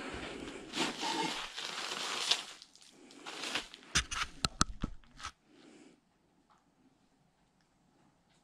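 Old newspapers and debris on a floor rustling and crunching, with several sharp crackles and snaps about four seconds in. The sound then cuts out to silence for the last couple of seconds.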